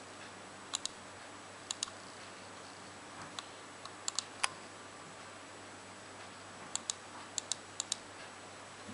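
Computer mouse clicking, mostly quick double-clicks, six or so spread through the stretch with a couple of single clicks, over a faint steady hum.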